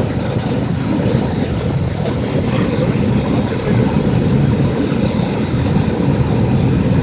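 Medical helicopter running loud and steady, its turbine and rotor making a constant low drone with a fast flutter.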